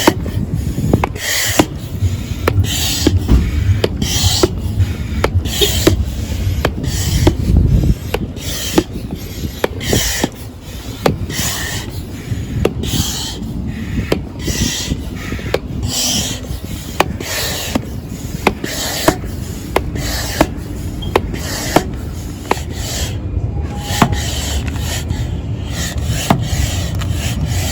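Hand pump inflating an inflatable boat: a steady rhythm of pumping strokes, each with a rush of air and the plunger rubbing.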